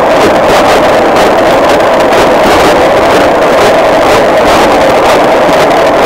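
Dishwasher wash cycle heard from inside the machine, with water jets spraying against the camera's waterproof housing: a loud, steady rushing with a rapid, even pulsing in the hiss.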